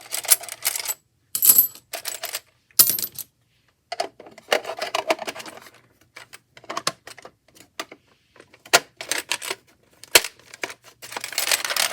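Planner binding discs clattering against each other and a mini toy vending machine as they are dropped in and shifted: irregular runs of sharp clicks and rattles with short pauses between them.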